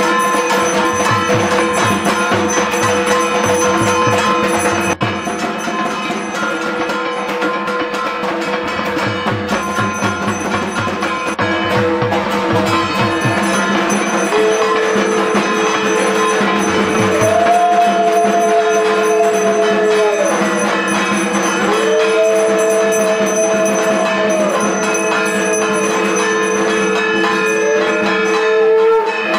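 A kansar (bell-metal gong) beaten rapidly with a wooden stick, together with a small brass hand bell ringing, in a continuous metallic clangour of puja ritual percussion. From about halfway, long steady tones sound three times over the clanging, each joined by a second, higher tone.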